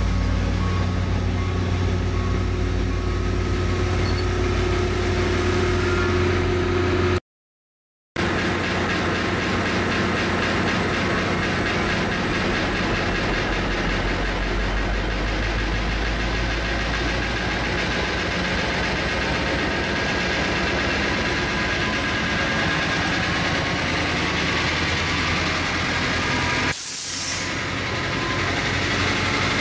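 COASTER diesel locomotive running with a steady low engine hum as it slowly pushes its bi-level commuter train past. The sound cuts out completely for about a second about seven seconds in.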